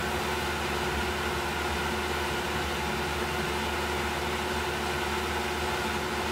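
CNC mill spindle running steadily while a 1/16-inch solid carbide tapered ball-nose end mill cuts a brass medallion: an even mechanical hum with a constant tone.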